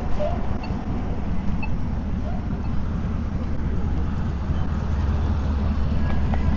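Steady low wind rumble buffeting the camera microphone, with tyre noise from an e-bike rolling along a paved trail.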